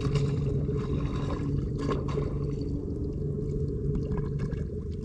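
Water sloshing and pouring over a low, steady rumble, with scattered small clicks.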